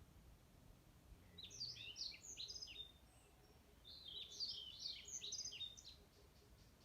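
A songbird singing two quick phrases of high chirping notes, each about a second and a half long, the second starting about a second after the first ends.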